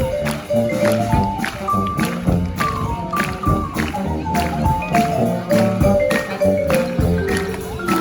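Brass band playing live: horn melody lines stepping from note to note over a steady drumbeat of about two strikes a second and low bass notes.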